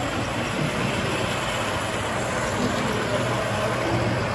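O gauge model freight train running past on its track, a steady rumble of the wheels on the rails.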